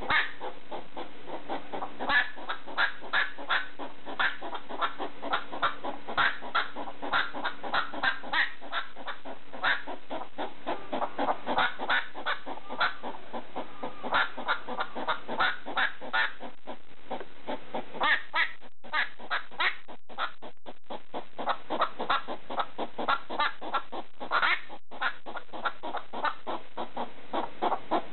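Pet hedgehog barking: a fast run of short, sharp calls, several a second, broken by brief pauses.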